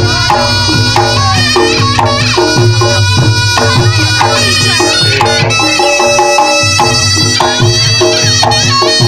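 Reog Ponorogo accompaniment: a reedy slompret shawm playing a winding melody over steadily beaten drums.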